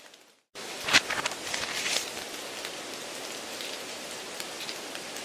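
Steady hiss with scattered crackles and clicks: a noise track laid under the test audio to imitate a poor exam-room broadcast. It drops out for about half a second at the start, then resumes.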